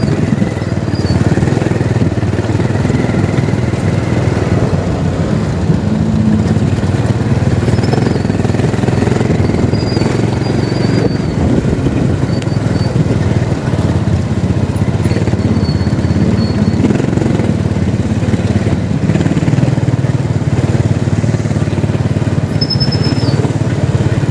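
Continuous street traffic, mostly motorcycle engines running past, with faint short high chirps here and there.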